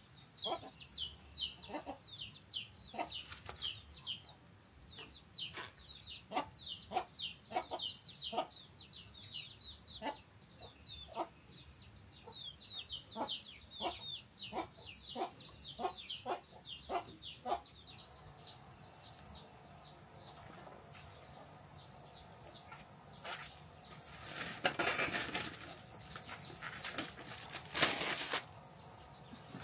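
A hand lever can opener working its way around the lid of a metal tin can: a quick run of sharp metallic crunches, about two a second, with short high squeaks of the cutting metal, stopping a little over halfway through. Near the end come a few seconds of rustling and handling noise.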